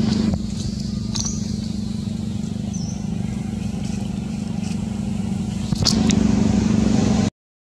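An engine running steadily with a low hum. It drops a little in level just after the start and comes back louder near the end, with a few faint clicks over it.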